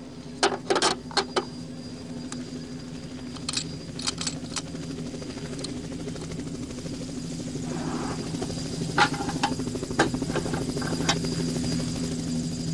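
A steady low hum that slowly grows louder, with clusters of sharp clicks about half a second in, around four seconds in, and again from about nine seconds in.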